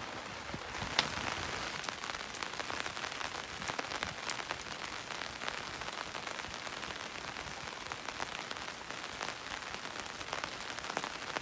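Rain pattering steadily, a dense spatter of fine drops, with one sharper tap about a second in.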